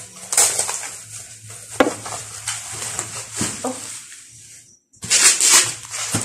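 Plastic packaging and bubble wrap crinkling and rustling in a series of sharp bursts as a parcel is unwrapped by hand, breaking off briefly near the end.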